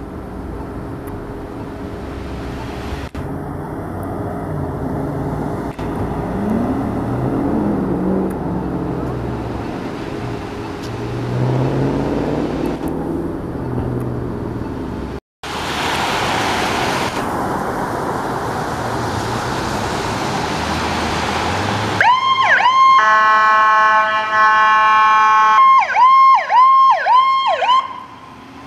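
Emergency vehicles on the road: first a heavy vehicle engine running, its pitch rising and falling, then road noise. Near the end, an emergency vehicle's electronic siren sounds a steady blast, then a run of quick downward swoops.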